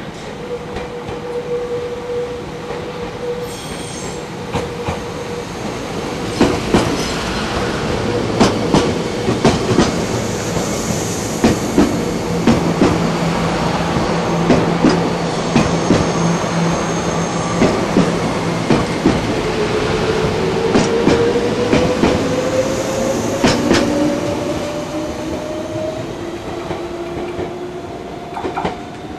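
A Meitetsu Panorama Car electric train running past close by, its wheels clacking over the rail joints as car after car goes by, with a steady hum under it. A whine rises in pitch during the last third as the sound fades away.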